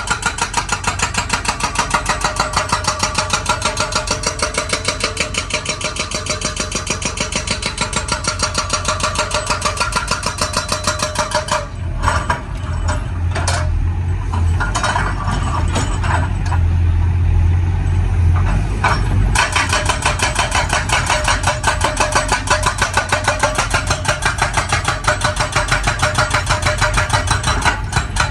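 Excavator-mounted hydraulic breaker hammering hard rock in rapid, evenly repeated blows. About twelve seconds in it stops for roughly seven seconds, leaving the excavator's engine running with a few scattered knocks, then starts hammering again.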